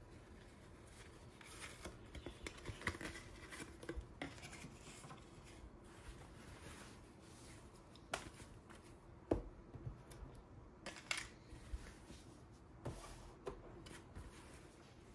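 Hands handling and stretching a pair of fabric briefs with an elastic waistband: faint, irregular rustling with scattered small taps and clicks, the sharpest a few about eight to nine seconds in.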